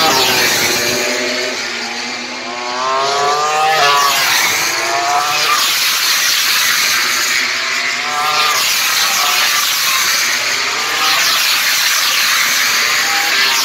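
Several MotoGP bikes' four-cylinder racing engines accelerating hard past the grandstand, one after another. Each engine's pitch climbs steeply, drops at each upshift and climbs again.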